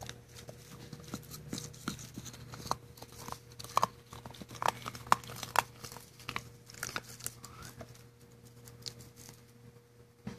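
Golden Retriever puppy chewing and gnawing on a toothbrush: irregular clicks and crunches of teeth on the brush, thinning out near the end.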